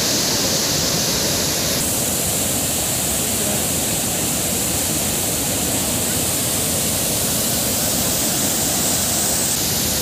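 Large river waterfall cascading over rock: a steady, loud rush of heavy falling water, shifting slightly in tone about two seconds in.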